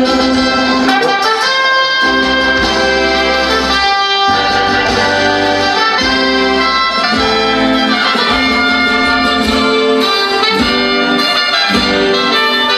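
Instrumental break in a choir's song: a brass melody over orchestral accompaniment, with long held notes and a chord change every second or two.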